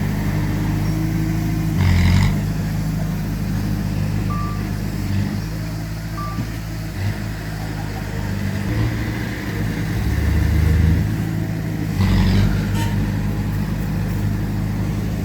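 Diesel engines of heavy earthmoving machinery running steadily, with a louder surge of engine load about two seconds in and again near the end.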